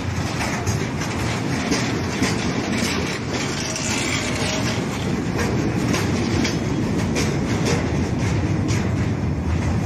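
Freight wagons (tank cars, then an open high-sided wagon) rolling past close by: a steady rumble of steel wheels on rail, with irregular clicks and clacks as the wheels cross rail joints.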